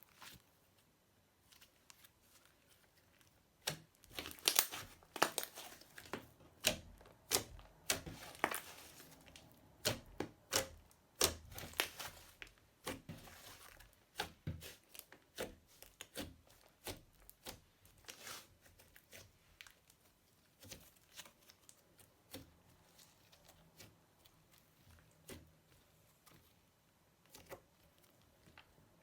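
Slime being squeezed and worked by hand, giving a run of sharp crackling pops and clicks, dense and loudest for the first third, then sparser and softer.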